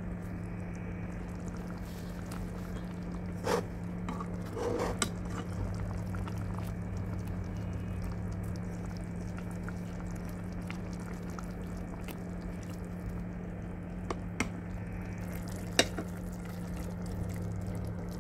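Green masala paste frying in oil in a pan, bubbling and sizzling as it cooks down until the oil separates at the sides, with a few sharp pops and clicks; a steady low hum runs underneath.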